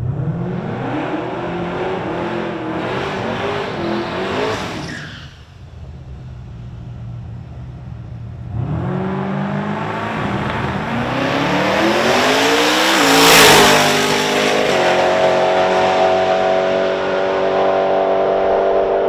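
Twin-turbo LSX V8 of a drag-racing Caprice revving hard for a few seconds during a burnout, then after a short lull building revs again on the start line and launching, pulling away at full throttle down the strip.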